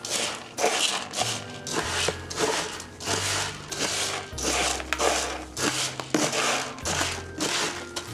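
Background music with a steady beat: a shaker-like rustle about twice a second over a bass line that changes note every second or so.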